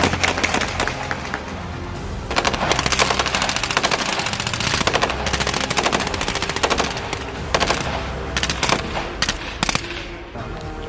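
Rifles firing on full automatic from a firing line, in rapid bursts that overlap. The fire is heaviest from about two to seven seconds in, then thins to scattered bursts near the end.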